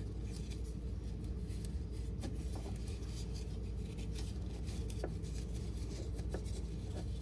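Nylon seatbelt webbing rustling and sliding through a plastic buckle as it is threaded by hand, with a few faint clicks of the buckle, over a steady low background hum.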